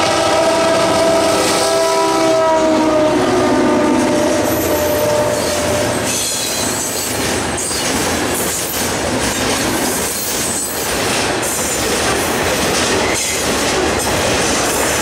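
Diesel freight locomotive horn sounding as the lead units pass close by; its pitch drops as they go past and it stops about six seconds in. Then a long line of freight hopper cars rolls past, the wheels clattering over the rail joints.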